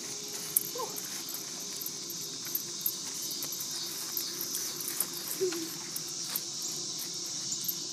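Steady high-pitched chorus of insects, such as crickets, on a summer evening, with scattered soft thumps and rustles of running footsteps on grass.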